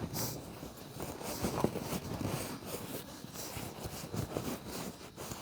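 Irregular rustling and scraping of leather upholstery being handled and tucked into place, with a few soft knocks.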